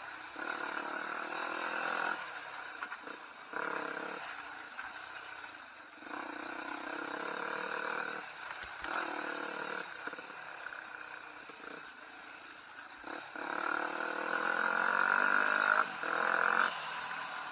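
Trail motorcycle engine revving up and down in repeated bursts of throttle, with short drops between them; the longest, loudest pull comes near the end.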